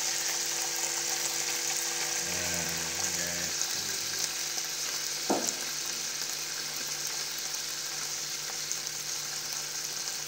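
Chicken satay skewers, including fatty skin-on pieces, sizzling steadily on a hot stovetop grill pan over a gas burner. A single sharp knock comes about five seconds in.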